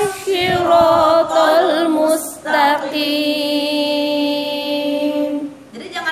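A woman chanting Quranic recitation in a melodic, ornamented line. She takes a breath about two seconds in, then holds one long steady note for about three seconds.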